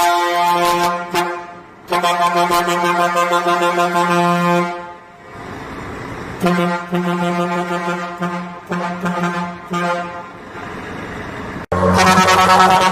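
Vehicle horn sounding a series of long blasts on one steady, rich tone, each one to three seconds long with short gaps between.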